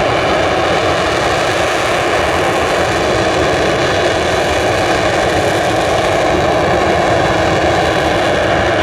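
The twin RB199 turbofan engines of a Panavia Tornado IDS running with a loud, steady roar that neither rises nor falls.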